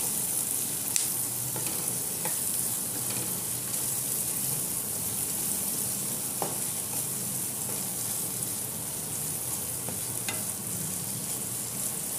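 Chopped onions sizzling steadily in melted butter in a nonstick kadhai while a wooden spatula stirs them, with a few light taps of the spatula against the pan.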